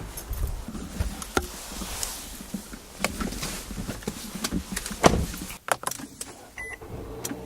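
Handling noises in a car: scattered clicks and knocks over a low rumble, with one short high beep near the end.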